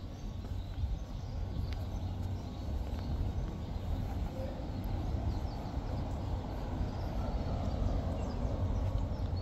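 Town street ambience: a steady low rumble with a mid-range hum that swells in the second half, and faint high chirps scattered through.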